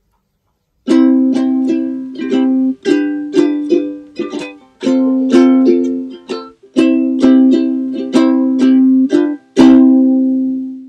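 Ukulele strumming a run of chords in a steady rhythm, starting about a second in. A last full chord near the end rings out and fades.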